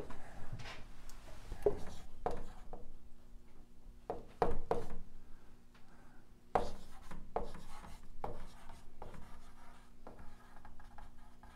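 Dry-erase marker writing on a whiteboard: a series of short, irregularly spaced strokes and taps of the marker tip as letters are written.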